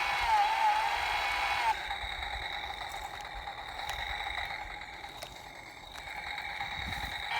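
Toy chainsaw's electronic engine sound effect: a buzzing rev whose pitch dips and wavers, dropping about two seconds in to a quieter steady idle-like hum with a thin high whine, then rising again at the very end.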